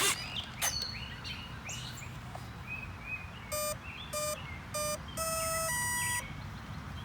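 Battery connector snapping together with a sharp crack as the RC jet's battery is plugged in, then the jet's electronic speed controller sounding its start-up tones: three short beeps, then a longer low tone and a higher one. Birds chirp in the background.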